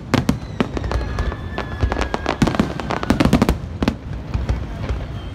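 Aerial fireworks display: shells bursting in a rapid, irregular string of sharp bangs and crackles.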